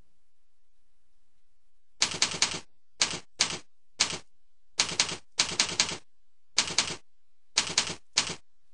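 Computer keyboard typing: sharp keystroke clicks in quick clusters of one to four with short pauses between, starting about two seconds in and stopping shortly before the end.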